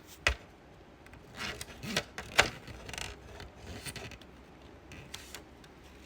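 Small plastic parts being handled and pushed together: a charging port worked into its plastic dash bezel, with sharp clicks about a quarter second in and twice around two to two and a half seconds in, the last the loudest, among light rubbing and scraping.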